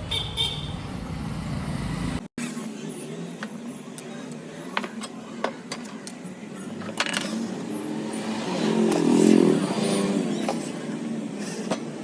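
Road traffic noise with scattered clicks and knocks, and a pitched voice-like sound swelling about two thirds of the way through.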